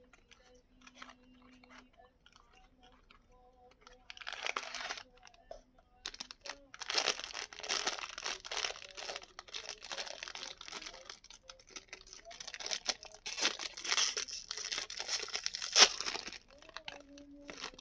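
Plastic blind-box packaging crinkling and tearing as it is opened: a brief rustle about four seconds in, then about ten seconds of continuous crinkling and ripping, with a sharp snap near the end.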